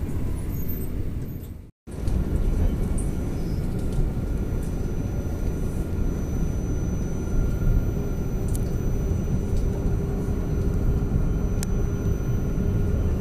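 Alstom Citadis 302 tram under way, heard from inside: a steady low rumble of the running gear with a faint steady whine over it. The sound cuts out briefly about two seconds in.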